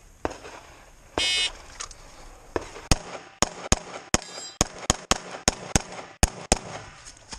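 A shot-timer beep sounds about a second in, starting a USPSA stage. About a second and a half later a CZ 75 Tactical Sports Orange pistol fires about a dozen shots, mostly in quick pairs.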